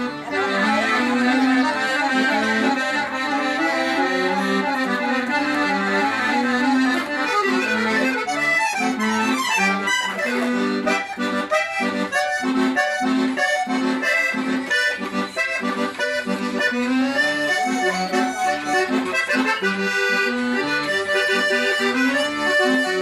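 Accordion (gaita) playing a tune in gaúcho style: melody over sustained chords, with short repeated notes in a quick rhythm through the middle.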